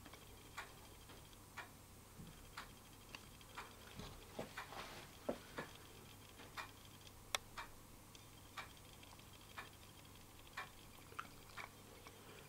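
A clock ticking faintly, about once a second, with a few irregular small clicks in between over a low steady hum.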